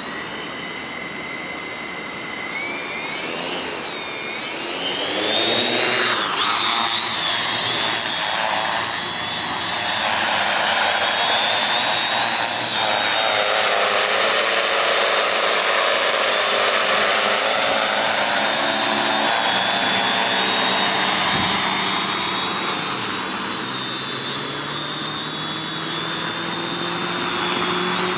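Tarot T810 hexacopter's six brushless motors and 15-inch carbon propellers spooling up: a high whine rises in pitch a few seconds in and gets louder as the drone lifts off. It then flies with a steady high motor whine over propeller wash, whose sound shifts slowly as the drone moves.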